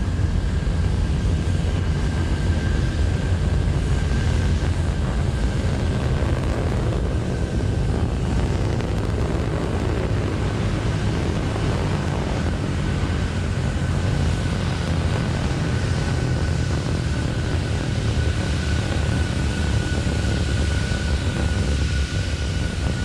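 Terran 1 rocket's nine-engine first stage burning during ascent: a loud, steady, crackling rumble.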